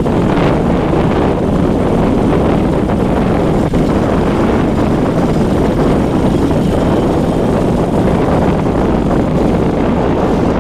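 Wind buffeting the microphone: a loud, steady rushing noise with no let-up.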